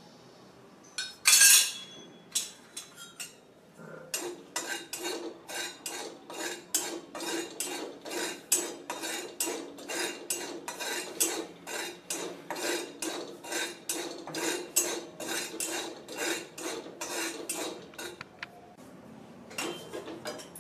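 A metal spatula stirs and scrapes dry salt around a metal kadhai, about two strokes a second, with the pan ringing faintly under the strokes. This is salt being dry-roasted. A sharp metal clatter comes about a second in.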